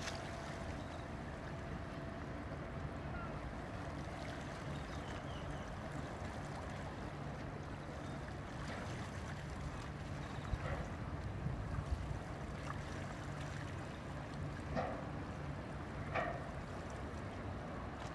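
Low steady drone of a passing oil tanker's engines, mixed with wind and lapping water, with a few brief sharper sounds in the second half.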